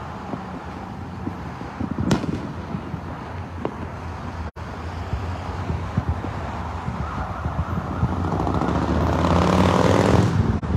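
Distant fireworks going off: a steady run of low booms and thuds, with one sharper bang about two seconds in, over road traffic. A vehicle's noise swells louder over the last few seconds.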